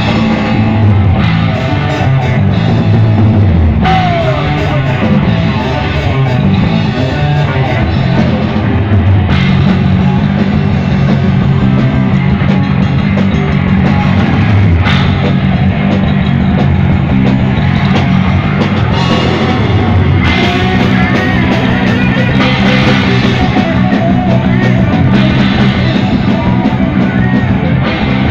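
Rock band playing live between sung verses: electric guitar over a drum kit.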